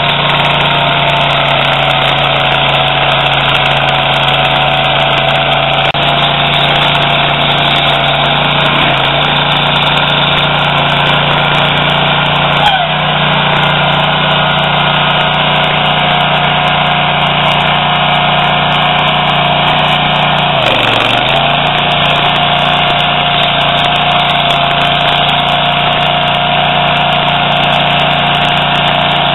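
Toro STX-26 stump grinder's gasoline engine running steadily at high speed. Its pitch sags briefly and recovers twice, and there is one sharp knock in between.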